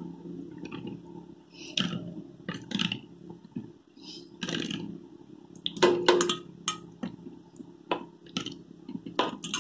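Wet squelching and slapping of raw chicken pieces being kneaded by hand in a marinade, in an irregular series of short bursts. A few sharp knocks against the steel bowl, about six seconds in and again near the end, leave a brief ring.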